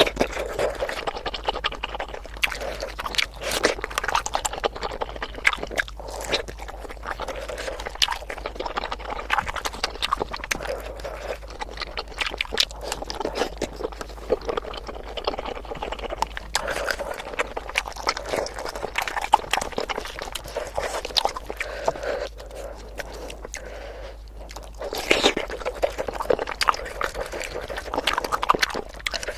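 Close-miked ASMR eating sounds of spicy bakso meatball soup: steady chewing with a quick run of small clicks and smacks, busier near the end.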